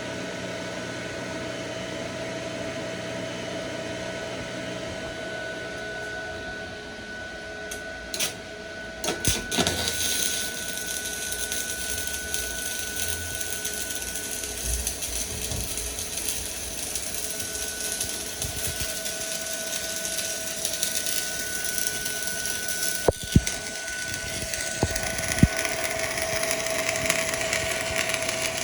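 A MAXARC-250 welding machine hums with a steady whine, then about nine seconds in, after a few sharp clicks, the arc is struck. A steady crackling hiss of electric arc welding runs on from there, with a couple of sharp clicks near the end.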